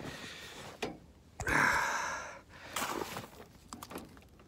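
A long breathy exhale, then a few light clicks and rustles as a battery charger cable and clamp are handled.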